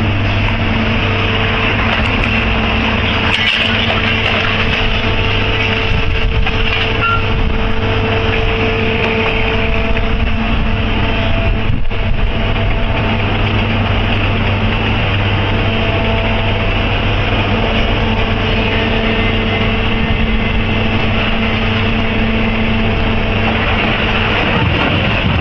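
Heavy vehicle engine running steadily at constant speed, with a steady hum.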